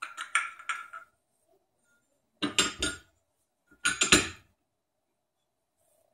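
Metal plates of a soft-plastic bait injection mold clinking and knocking together as the mold is handled and opened, in three short bouts of clatter: one right at the start, one about two and a half seconds in, and one about four seconds in.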